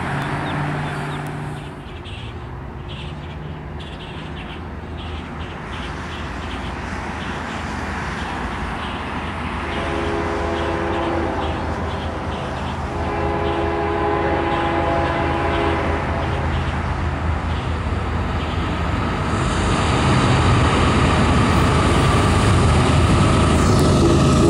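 CSX GE diesel freight locomotive approaching, its engine rumble growing steadily louder. It sounds two long blasts on its multi-chime air horn, about ten and thirteen seconds in.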